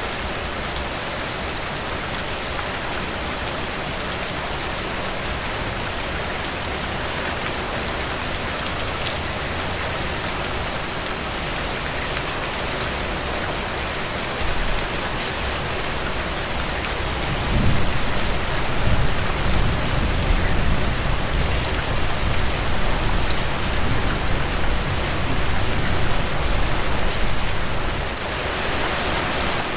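Steady rain falling on leaves: an even hiss with scattered sharp drop hits. A little past halfway a low rumble comes in and lasts about ten seconds, making it louder.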